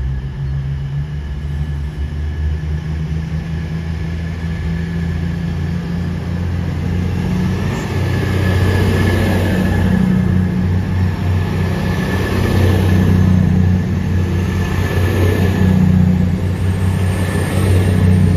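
Underfloor diesel engines of a Class 222 Meridian multiple unit running, their deep note growing louder through the second half, with a thin steady whine above it.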